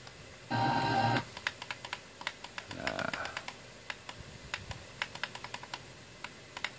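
Sony digital-synthesizer FM tuner being stepped up the band by repeated presses of its tuning button: a run of quick clicks, several a second. About half a second in, a loud snatch of station sound comes from its speaker for under a second, and a fainter one near three seconds.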